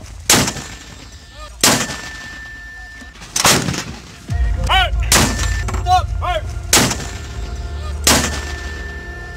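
M777A2 155 mm towed howitzer and 120 mm mortar firing: a series of loud, sharp blasts, roughly one every second and a half, with a low rumble underneath from about four seconds in.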